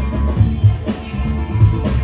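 Loud breakbeat music with a heavy, punchy kick drum and bass line, played over a venue sound system.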